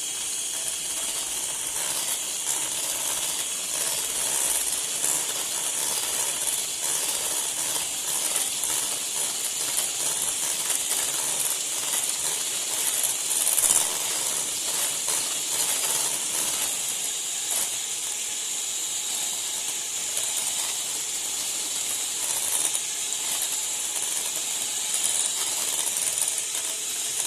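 Electric mixer whipping heavy cream in a bowl: a steady, hissy whir that switches on suddenly and cuts off suddenly about 28 seconds later.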